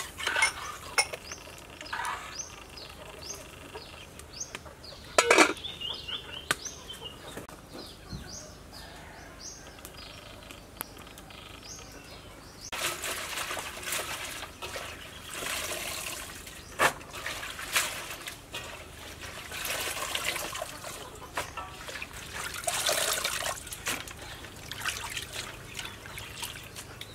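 Water sloshing and splashing in repeated bursts as water spinach is washed by hand in a metal basin, starting about halfway through. Before that, small birds chirp, and there is one sudden loud sound about five seconds in.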